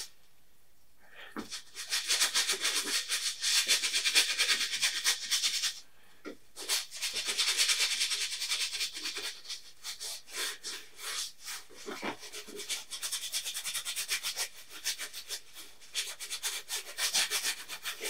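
Flat paintbrush scrubbing oil paint onto a canvas in quick back-and-forth strokes, a dry rasping hiss. It pauses briefly at the start and again about six seconds in.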